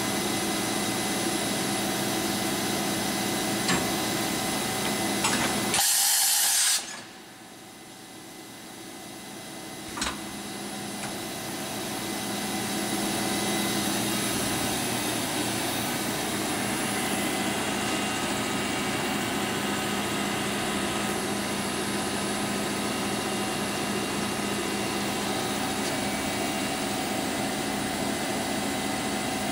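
Kitamura Mycenter 1 vertical machining center running with its spindle at high speed, last stepped up to 8,000 RPM: a steady machine whine made of several constant tones. About six seconds in there is a brief, loud hissing burst.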